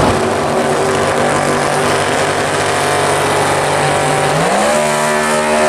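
Chevrolet Nova drag car's engine held at high revs during a burnout, the rear tyre spinning. The engine note is steady, then climbs quickly about four seconds in and holds at the higher pitch.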